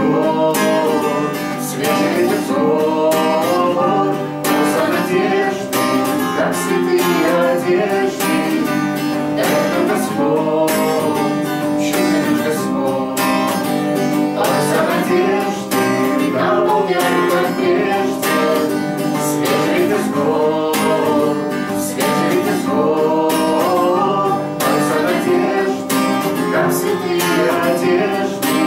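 Acoustic guitar strummed in a steady rhythm, with a woman's voice singing a melody over it.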